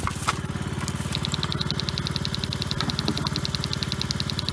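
Small petrol engine running steadily. From about a second in, a fast, even ticking runs alongside it.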